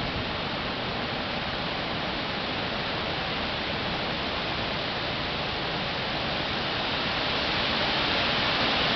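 Steady, even rushing hiss with no distinct events, growing gradually louder toward the end.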